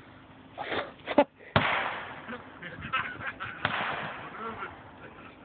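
A sharp crack about a second in, then a louder bang with a long fading tail, followed by scattered knocks and voices.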